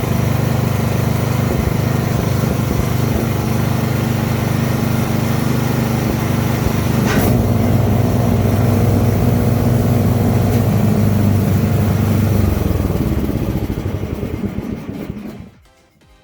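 Small snowblower engine running steadily on a loud, even note, with a sharp click about seven seconds in after which the note shifts slightly. The snowblower has a broken pin. The engine sound then dies away near the end.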